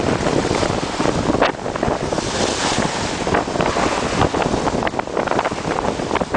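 Strong wind buffeting the microphone over the rush of bow wave and spray along the hull of a Sydney 41 racing yacht sailing fast and heeled over in about 30 knots of wind, with a burst of louder hiss about two seconds in.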